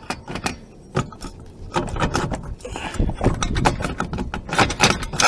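Handling of a new rear wheel hub and its parts: a run of clinks, knocks and rattles, sparse at first and busier from about two seconds in.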